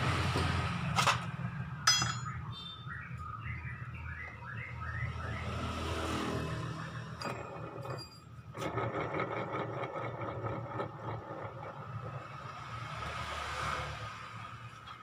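Honda Vario scooter's engine idling with its CVT open and the drive belt off, a steady low rumble, with sharp metallic clinks about one and two seconds in. From about nine seconds in a fast, rough rattle joins it: the rough running that the mechanic traces to a worn ball bearing in the driven pulley.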